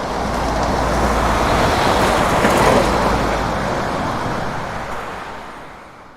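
Truck passing by: engine rumble and road noise that swell to a peak about two and a half seconds in, then fade away.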